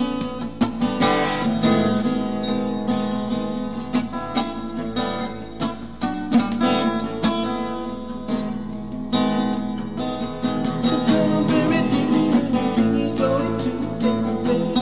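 Solo acoustic guitar playing an instrumental passage, strummed and picked chords with several note attacks a second.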